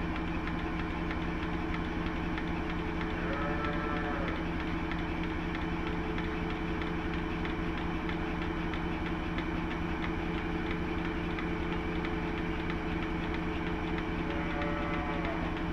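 A steady machine hum runs throughout, and over it a cow moos briefly twice: once about three seconds in and once near the end.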